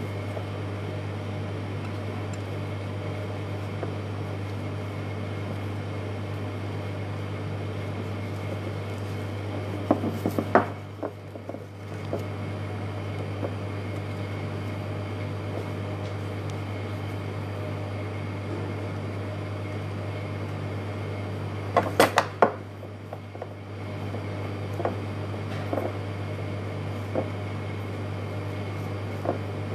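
A steady low mechanical hum throughout, with short clusters of clicks and clatter about ten seconds in and again about twenty-two seconds in, from the lace fabric vase being handled on the wooden bench.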